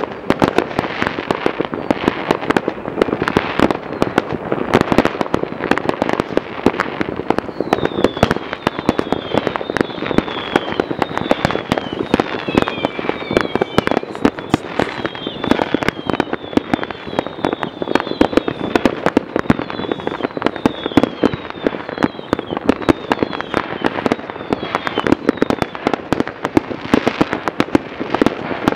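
Many fireworks going off at once: a dense, unbroken rattle of pops and bangs. From about eight seconds in until near the end, short high whistles falling in pitch come through, many overlapping.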